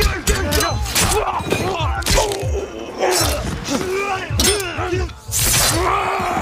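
Film fight sound effects: a string of sharp hits and swishing slashes, with men groaning and crying out in pain.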